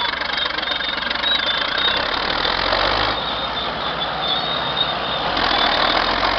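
Caterpillar D8 crawler tractor's diesel engine running, its tone shifting about two seconds in and again near the end.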